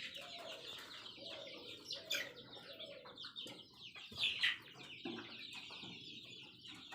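A flock of month-old Sonali chickens cheeping and clucking, many short high calls overlapping, with a few louder calls about two and four and a half seconds in.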